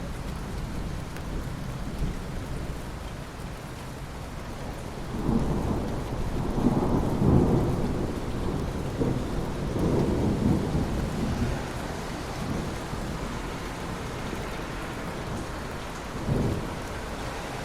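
Steady heavy rain with a long roll of thunder about five seconds in that swells twice and fades over several seconds. A shorter, sharper thunderclap comes near the end.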